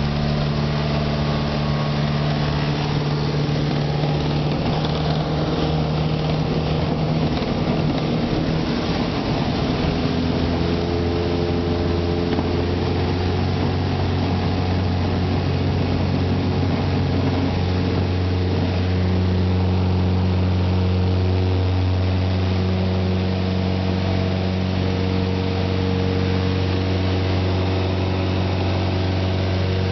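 Jabiru light aircraft's engine and propeller running steadily under power, heard from inside the cabin during the take-off roll and climb-out. The engine's tone shifts about ten seconds in.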